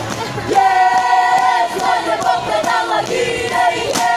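A group of scouts chanting and singing a scout yell in unison, holding long sung notes, with a sharp knock just before the end.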